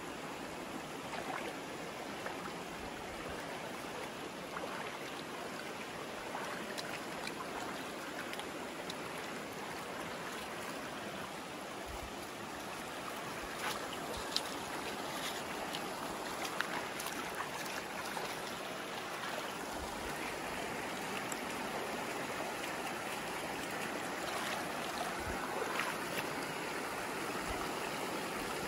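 Shallow rocky creek flowing over stones: a steady rush of water that grows slightly louder toward the end, with a couple of brief clicks about halfway through.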